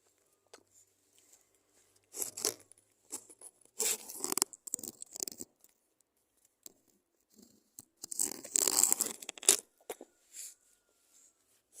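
Close-up crackling from a lollipop being handled and eaten, in three bursts: a short one about two seconds in, a longer one around four seconds, and the loudest near nine seconds.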